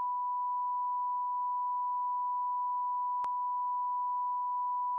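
Censor bleep: a single steady, pure tone held unbroken, dropped in over a curse. There is one tiny click about three seconds in.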